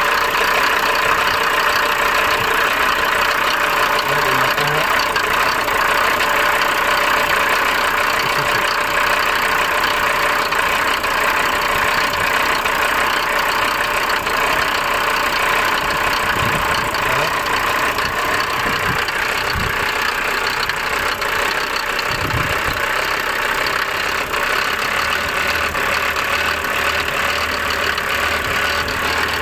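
Mercedes 250 Turbodiesel's five-cylinder diesel engine idling steadily with the bonnet open, on an engine that has unstable revs. A few dull bumps come about two thirds of the way through.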